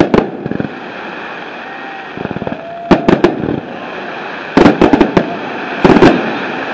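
Fireworks display: aerial shells bursting in clusters of sharp bangs, about four clusters a second or two apart, with a brief crackle between them.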